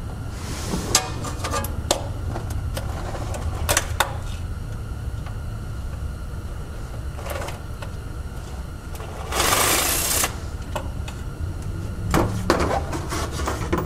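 Cordless impact driver on a long extension spinning out small, already-loosened oil pan bolts in short runs, with clicks and clinks of socket and bolts. The loudest run lasts about a second, about two thirds of the way in, over a steady low hum.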